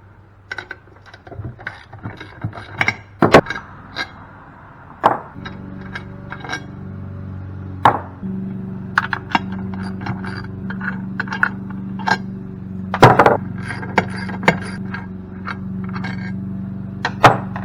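Metal tools and cast aluminium pump parts knocking, clinking and scraping during disassembly, with a few sharp loud knocks. A steady low hum comes in about five seconds in and carries on under the knocks.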